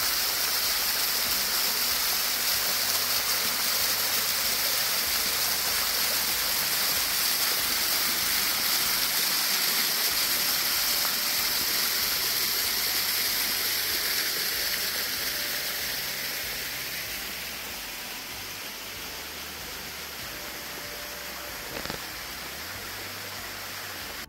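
Stream water rushing steadily, the sound growing fainter from about fifteen seconds in.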